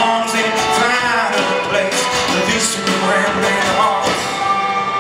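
Live acoustic folk-rock band (acoustic guitar, banjo, fiddle and drums) playing the closing bars of a song, with male lead vocals. Near the end the band settles onto steady held notes as the song winds down.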